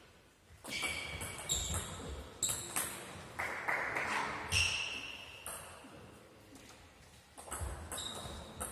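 Table tennis ball clicking off the bats and the table in quick rallies, each hit sharp and echoing in a large sports hall. The hits thin out past the middle and pick up again near the end.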